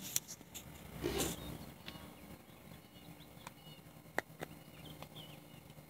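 Faint handling noise: a few scattered clicks and taps as a phone is moved and set up, over a low steady hum.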